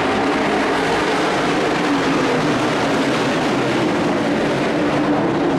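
A pack of racing pickup trucks' engines running together on a dirt oval, a loud, steady din of several overlapping engine notes.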